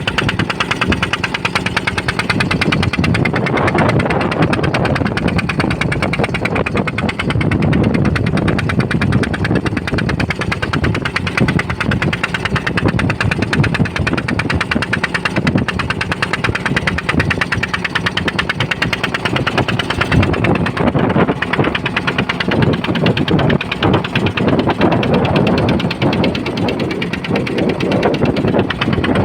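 Boat engine running steadily, a fast even pulsing that holds throughout.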